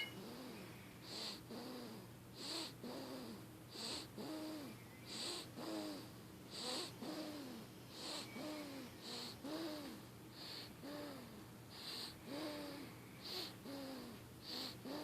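A sleeping baby snoring: a steady run of short snores, a little over one a second, each rising and falling in pitch with a breathy hiss on top.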